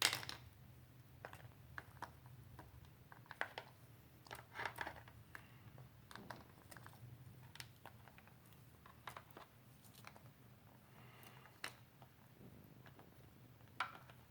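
Scattered small clicks, taps and brief rattles as an African grey parrot handles and beaks at small hard toys, over a faint steady low hum.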